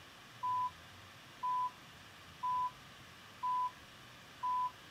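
Five short electronic beeps at the same pitch, evenly spaced one a second: the Pusher jailbreak program's countdown while the iPhone's Home and Power buttons are held down.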